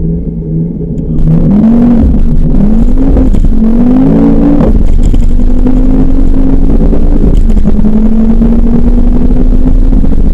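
2010 Ford Focus RS's turbocharged 2.5-litre five-cylinder engine heard from inside the cabin on track, getting much louder about a second in as it comes on hard throttle. The revs rise and fall three times, then hold a nearly steady high note.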